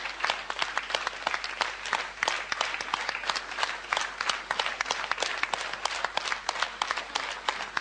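Studio audience applauding, many hands clapping steadily.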